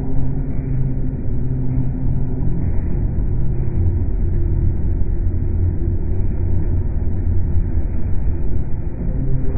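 A steady low rumble with a droning hum underneath, unbroken throughout.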